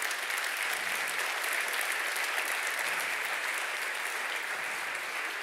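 A large lecture-hall audience applauding steadily, dense many-handed clapping at the end of a talk.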